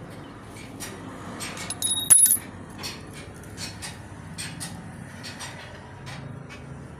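Metal parts and tools clinking and tapping while a tractor steering box is assembled by hand, with a louder ringing metallic clink, like a coin dropped, about two seconds in.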